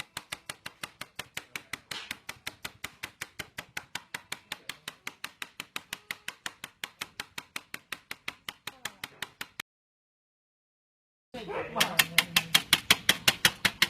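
Rapid, even tapping, about five taps a second. It breaks off into dead silence about ten seconds in, then resumes louder near the end.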